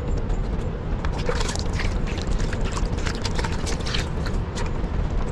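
Water poured from a plastic mug splashes over a scored raw fish on a wooden chopping board as hands rub it clean, making many short irregular wet splashes and taps. A steady low rumble runs underneath.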